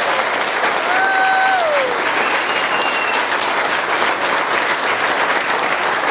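A small crowd clapping steadily, with a drawn-out whoop about a second in that drops in pitch at the end, and a brief high-pitched tone just after it.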